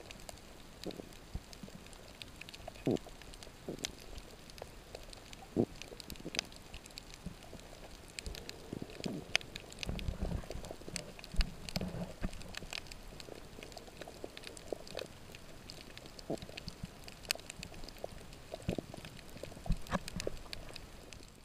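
Underwater reef ambience picked up by a submerged camera: irregular sharp clicks and crackles with scattered low thumps, and a longer stretch of low rumbling about ten seconds in.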